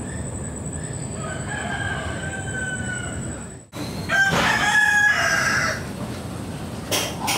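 A rooster crowing: faintly about a second and a half in, then close and loud for about a second and a half, starting about four seconds in just after a brief dropout.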